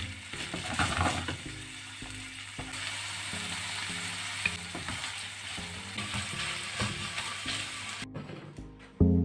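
Food sizzling as it fries in a pan, with a utensil stirring and scraping. The sizzle stops suddenly about eight seconds in.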